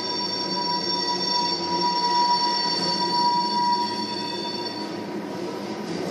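Tank cars of an oil train rolling past, the wheels rumbling on the rails with a steady high-pitched wheel squeal that fades out about five seconds in.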